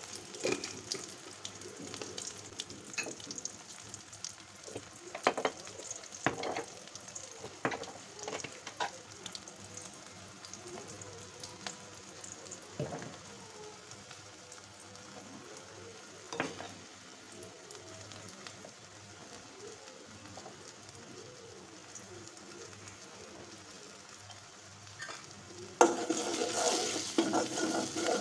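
Oil sizzling in an aluminium pot as cumin seeds and ground spices fry, with scattered light clicks. About 26 seconds in, the sizzle turns suddenly louder as shrimp go into the hot oil and are stirred with a metal spoon.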